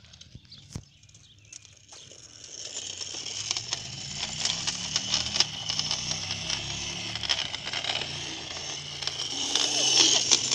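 Small electric kids' scooter riding on asphalt: a steady hiss and crackle of the wheels on the pavement with a low motor hum, starting about two seconds in and getting louder near the end.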